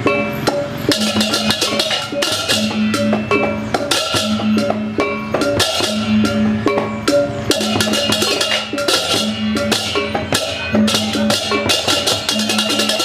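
Balinese gamelan percussion playing for a barong: drum strokes and a repeating pitched metallic tone, with stretches of rapid clashing cymbals a second or two long that come and go throughout.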